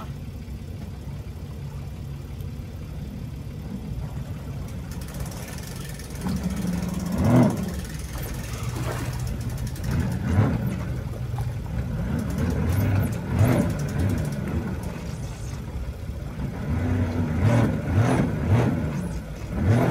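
Sea-Doo Fish Pro jet ski engine idling, revved in short bursts every few seconds as the watercraft is driven up onto its submerged trailer, with several quick revs close together near the end.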